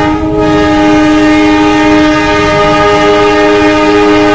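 Diesel locomotive's air horn sounding one long, steady chord of several tones as the train approaches.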